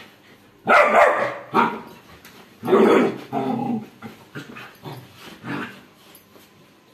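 Labrador puppy barking at a Rottweiler: a few loud barks in the first three seconds or so, then a string of quieter barks.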